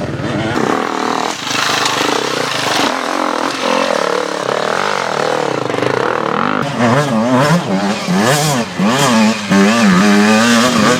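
Enduro motorcycle engine revving, with the throttle blipped up and down in quick bursts, more strongly in the second half.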